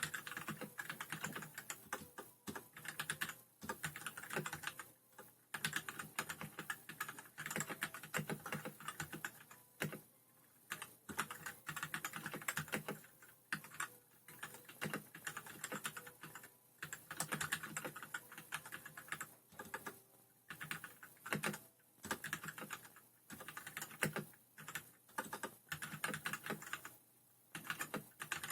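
Typing on a Royal Kludge RK100 mechanical keyboard with linear red switches: quick runs of keystrokes broken by short pauses every few seconds.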